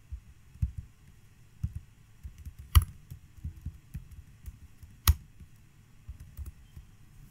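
Computer mouse clicks picked up by the microphone: a scatter of soft low knocks and two sharp, loud clicks, one near the middle and one about two seconds later.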